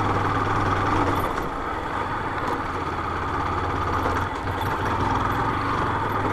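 Honda motorcycle engine running at low speed on a dirt road. Its note eases off about a second in and picks up again after about four seconds.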